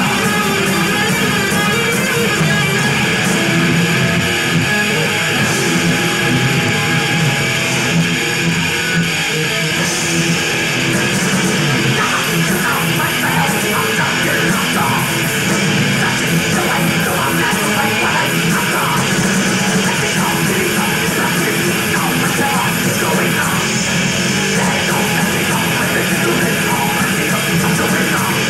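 Thrash metal band playing live: heavy distorted electric guitars over bass and drums, loud and unbroken, with no singing.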